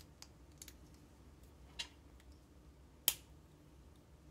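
Hard plastic LEGO pieces clicking as they are handled and pressed together: a few sharp, separate clicks, the loudest about three seconds in.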